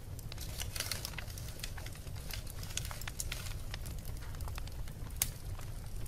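Wood fire crackling in a brick fireplace: frequent small pops and snaps, a dense flurry of crackles about a second in and one sharp pop near the end, over a steady low rumble.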